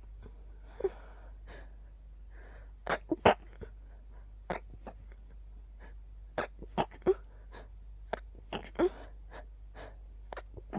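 A rapid series of stifled sneezes: short, sharp, muffled bursts, often two or three in quick succession, with fainter breaths and sniffs between them. The sneezes are being held back rather than let out, and keep coming in quick succession.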